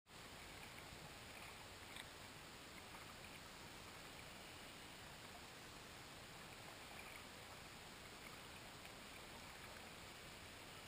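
Faint, steady underwater hiss, with a few faint clicks, one about two seconds in.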